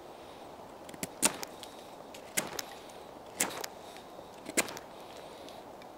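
Mora Bushcraft knife blade shaving curls off a wooden peg: a handful of sharp whittling strokes about a second apart, two in quick succession near the start.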